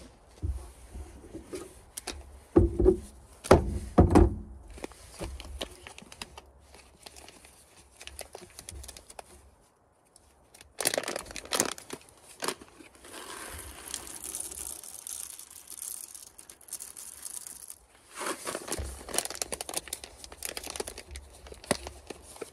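A foil-lined coffee bag crinkling as it is handled and rolled, with sharp knocks and rattles as whole coffee beans are poured into a hand coffee grinder.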